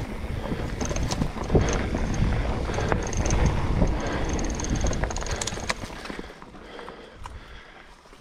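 Mountain bike rolling fast down a dirt trail strewn with dry leaves: tyre rumble with a steady clatter of rattles and knocks as the bike goes over bumps. It eases off and gets quieter in the last couple of seconds.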